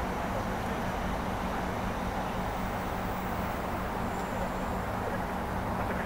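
Steady outdoor city background noise: a low, even hum under a constant hiss, with no distinct events.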